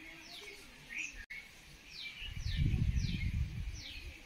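A bird calling over and over, short high chirps that each drop quickly in pitch, about two a second from about a second and a half in. A low rumbling noise on the microphone swells in the middle and is the loudest thing.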